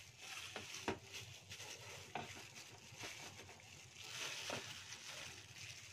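Plastic glove crinkling and rustling as a gloved hand turns a raw tilapia and rubs spice paste onto it on a plate, with a few light clicks.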